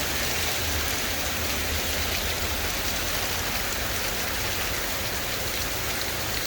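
Heavy rain falling steadily, with runoff from the roof pouring and dripping straight down.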